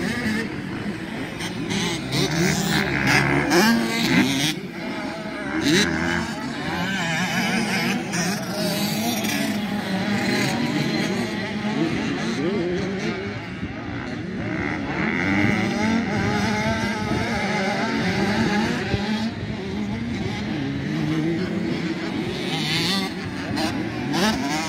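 Motocross bike engines revving, the pitch rising and falling again and again as the throttle is opened and closed through the turns.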